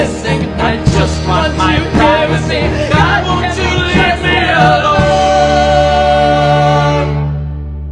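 A song with a singing voice over music, settling about five seconds in onto a long held note and chord that slowly fades.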